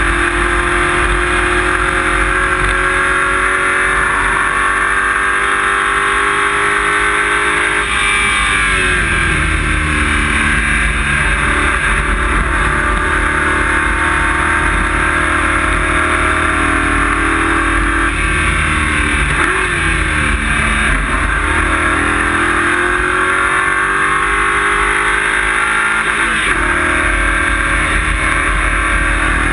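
Race car engine heard from inside the stripped, caged cabin, running loud, its pitch falling and climbing again several times as the car is driven.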